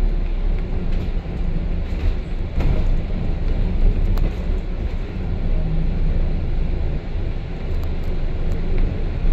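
London double-decker bus in motion, heard from on board: a steady low engine and road rumble, with a few light clicks and rattles through it.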